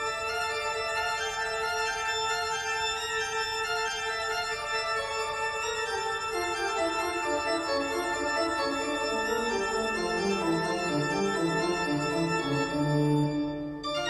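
Background instrumental music: held keyboard-like chords over a bass line that steps slowly downward through the second half.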